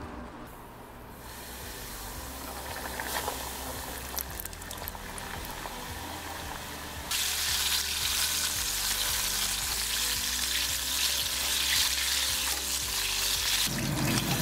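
Battered chicken drumsticks deep-frying in hot oil in a stainless saucepan, a steady sizzle. The sizzle jumps louder about halfway through. Faint background music runs under it.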